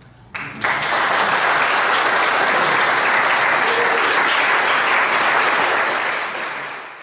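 Audience applauding at the end of a piece, breaking out suddenly about half a second in, holding steady and fading away near the end.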